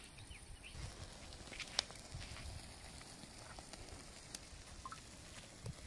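Faint crackle and scattered small clicks from a wood-and-charcoal cooking fire, with low soft puffs of air as the fire is fanned with a hand fan; one sharper click about two seconds in.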